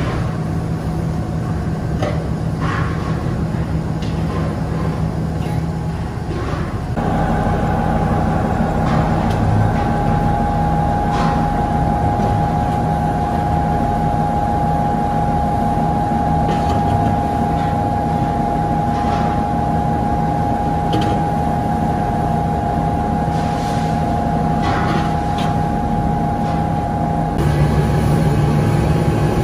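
Large hydraulic press running, its pump motor giving a steady low hum. About seven seconds in a steady whine joins the hum and holds until near the end, when the whine drops away and the hum grows louder, with a few light clicks and knocks scattered through.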